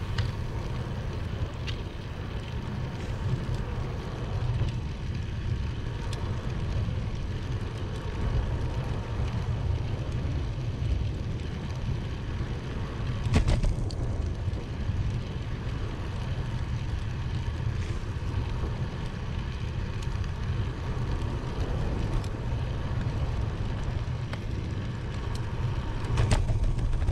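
Steady low rumble of wind and riding noise on the microphone of a camera carried on a moving bicycle, with one sharp knock about halfway through.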